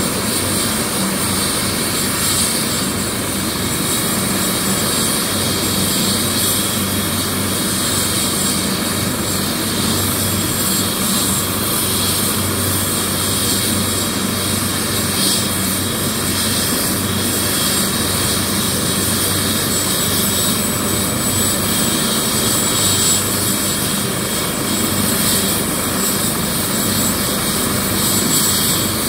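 Large turbine helicopter running on the ground with its main rotor turning. The engine and rotor noise is loud and steady, with no rise in power.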